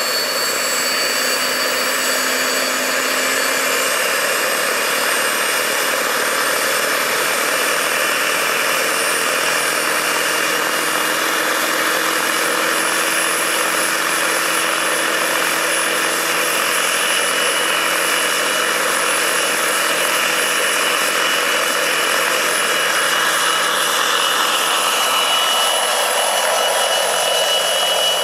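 Jakadofsky Pro 6000 model gas turbine of a large-scale RC Eurocopter EC-120 helicopter running, a high turbine whine over a steady rush of rotor and exhaust. The whine creeps slowly up in pitch as the turbine spools up, and near the end the helicopter lifts off into a hover.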